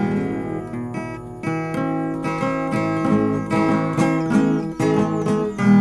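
Acoustic guitars strummed and picked in a steady rhythm, with no singing: the instrumental introduction of a sertanejo song.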